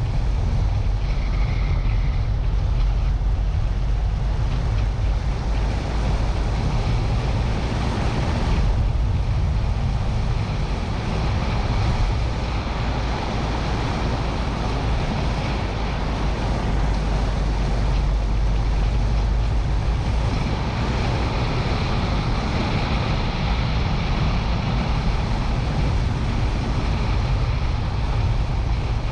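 Car driving along at steady speed, heard from a camera mounted outside on the bodywork: a continuous low rumble of engine and tyres on a rough tarmac lane, with wind buffeting the microphone.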